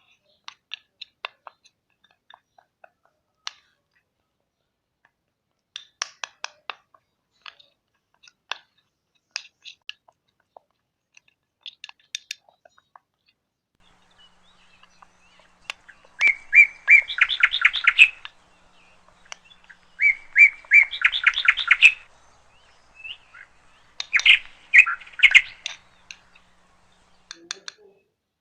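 A small bird chirping: scattered short chirps and clicks at first, then from the middle on three loud bursts of rapid trilled chirps, each about two seconds long and a few seconds apart.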